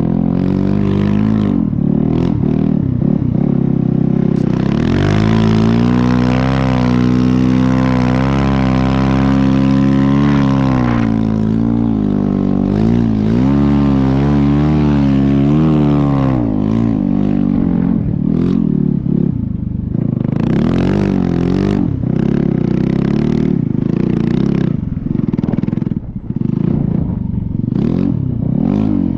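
Snow bike's dirt-bike engine under throttle: held revs that waver up and down for about twelve seconds, then a run of short throttle blips.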